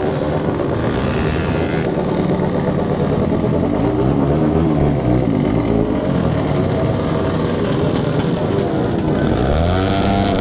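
Motorcycle engines running in a slow group ride, the engine note rising and falling with the throttle, dipping and climbing again near the end.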